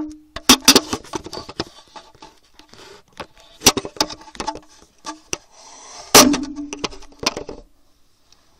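Handling noise from the recording phone as it is moved about and set down: a quick run of knocks and taps, with two louder bangs, near the start and about six seconds in, that ring briefly. It dies away shortly before the end.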